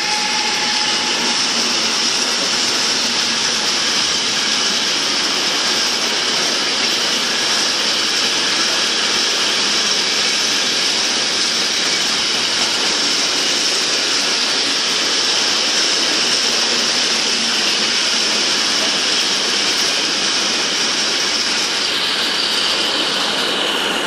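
Freight train of hopper wagons rolling past close by: a loud, steady noise of wheels on the rails with a high-pitched ring.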